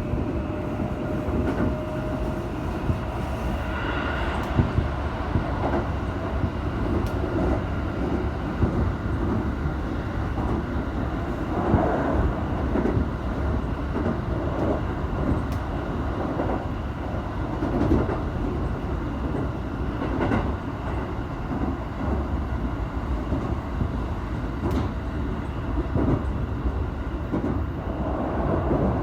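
Keikyu 1000-series electric train running at speed, heard from inside a passenger car: a steady rumble of wheels on rail, with sharp clacks over rail joints every few seconds.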